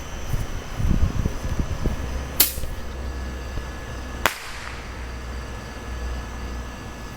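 Bottle rockets going off: two sharp bangs about two seconds apart, the second trailing off in a short echo. A low rumble comes before them in the first couple of seconds.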